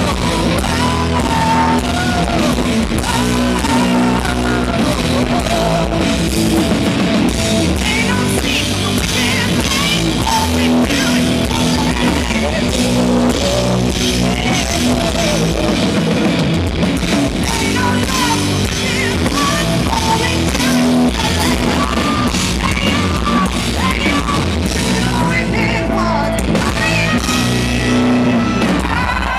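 Live hard rock band playing loud, with distorted electric guitars, a drum kit and a female lead vocal.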